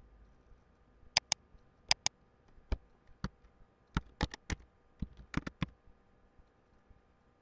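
Computer keyboard and mouse clicks as a word is typed into a web form: two quick pairs of clicks about a second in, then a run of about ten single keystrokes.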